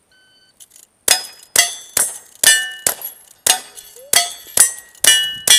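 A shot timer's start beep, then a rapid string of about ten rifle shots at roughly two a second, each followed by the ringing of a hit steel target.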